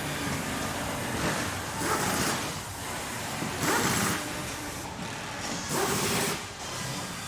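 Factory machinery running, a steady mechanical din with hissing surges, like released air, about every two seconds.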